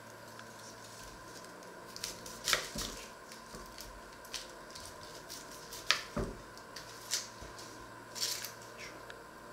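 Dry onion skins crackling and rustling as an onion is peeled by hand with a small knife, in scattered short crackles, the loudest a couple of seconds in and again about six seconds in.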